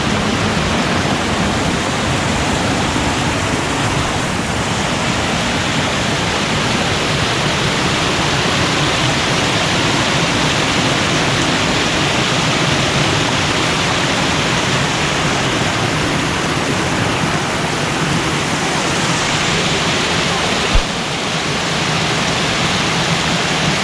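Creek water rushing steadily over a small waterfall and cascades, a dense even roar of falling water. A single brief bump sounds near the end.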